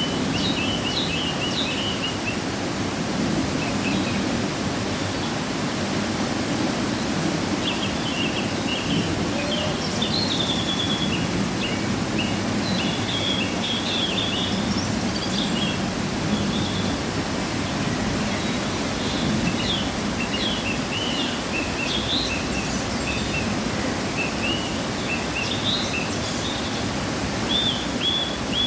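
Waterfall running after rain: a steady rush of falling water, with small birds chirping on and off above it.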